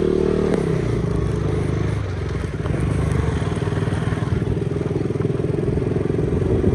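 Motorcycle engine running while riding, heard from the pillion seat, with its pitch falling a little about half a second in and then holding steady.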